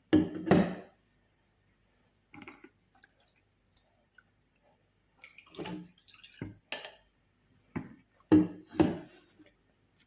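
Liquid dripping and splashing in separate short drops and knocks. The loudest are a pair at the start and another pair near the end.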